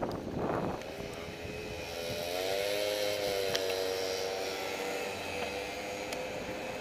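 An engine's steady, hum with a slightly wavering pitch, rising up just under a second in and holding, over road and wind noise.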